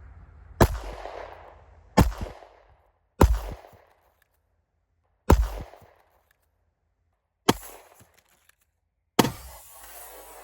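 Sig Sauer 9 mm pistol fired six times at uneven intervals of about one to two seconds, each shot followed by a short fading echo.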